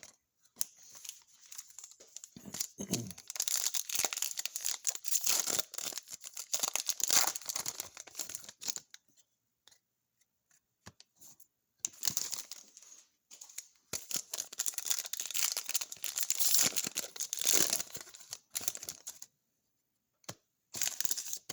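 Trading card pack wrappers being torn open and crinkled by hand, in two long stretches of tearing and crackling with a pause of a couple of seconds between them.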